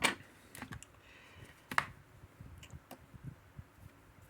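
Small sharp metallic clicks and ticks from a Sezam combination lock as its key is worked back and forth. The key barely rotates because the four combination tumblers are all set to 0, the wrong combination. The loudest click comes at the start, another just under two seconds in, and fainter ticks fall between.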